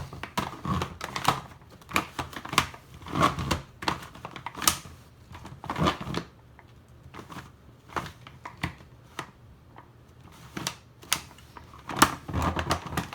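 Giant 3x3 Rubik's cube (He Shu, about 18 cm, plastic) being turned by hand: irregular plastic clacks and knocks as its layers are twisted, with a few quieter seconds in the middle. The layers are stiff and hard to turn.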